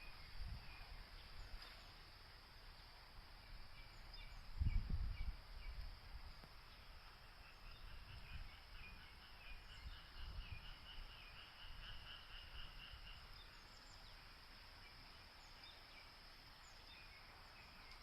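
Outdoor natural ambience: a steady hiss with low rumbling gusts, the loudest about five seconds in, and a bird giving a rapid string of high chirps in the middle.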